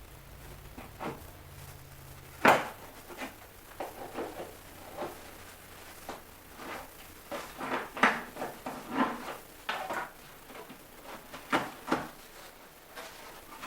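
A bow's shipping box and its packaging being opened and handled: irregular knocks, scrapes and rustles, with the sharpest knock about two and a half seconds in.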